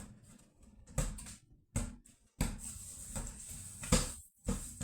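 A handful of dull knocks and thumps, about five spread irregularly, with quiet gaps between them; the loudest comes near the end.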